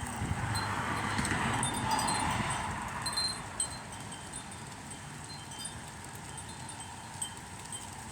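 Wind chimes ringing in dust-storm wind, with a gust swelling in the first couple of seconds and then easing off.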